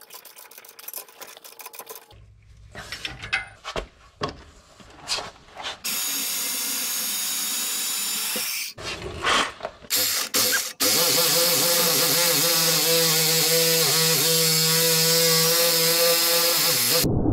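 A ratchet clicking on the U-bolt nuts, then power tools cutting off the excess threaded ends of steel leaf-spring U-bolts. First a cordless angle grinder grinds for a few seconds, then after some short starts a reciprocating saw cuts steadily for about six seconds with a wavering pitch, stopping abruptly near the end.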